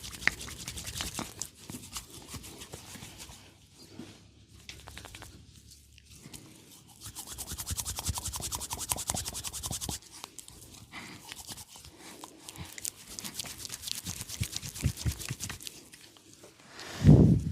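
Oiled hands rubbing and squelching on skin close to the microphone, a dense crackling friction that swells and fades in waves. A single loud, deep thump comes near the end.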